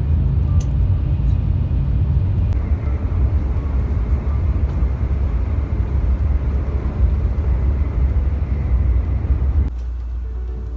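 Shinkansen bullet train cabin noise: a loud, steady rumble of the train running, which drops to a quieter, even hum near the end.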